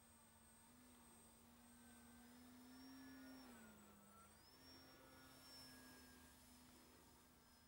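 Faint, steady whine of the Thunder Tiger E-Hawk 1500's electric motor and propeller. Its pitch rises slightly, drops about three and a half seconds in, then settles back to a steady note.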